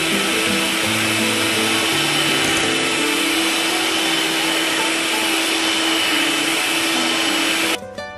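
Electric hand mixer running steadily, its beaters whisking egg yolks in a bowl, over background music. The motor cuts off suddenly near the end, leaving only the music.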